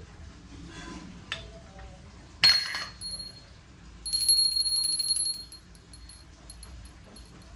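A small metal bell struck once, ringing with a clear high tone that fades over about a second, then rung rapidly for just over a second with a fast run of strikes.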